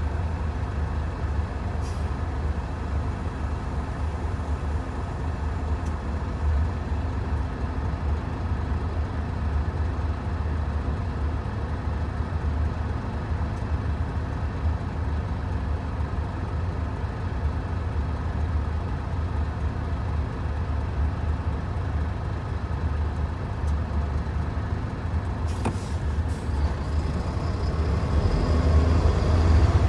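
Hino Profia heavy truck's diesel engine idling steadily, heard inside the cab while the truck is stopped, then growing louder as it pulls away near the end.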